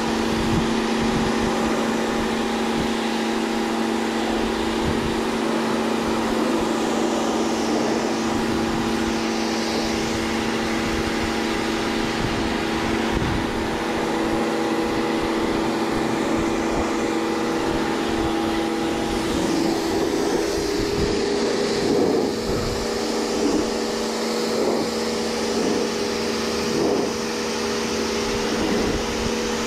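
Water spray washer running with a steady motor hum while its jet hisses against a heavily dust-clogged air-condensing unit, the hiss swelling and fading as the spray sweeps back and forth. A few short knocks come in the second half.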